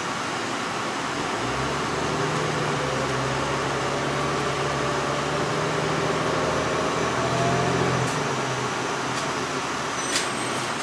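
City bus running, heard from inside the cabin: a low engine hum comes in about a second in, with a faint whine rising slowly in pitch as the bus gathers speed. Both ease off about eight seconds in. A single sharp click comes near the end.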